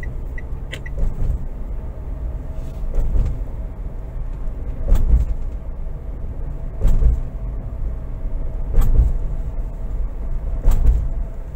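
Car cabin road noise with a short thump-and-rattle about every two seconds as the tyres cross rumble strips laid 15 to 20 metres apart across the concrete road.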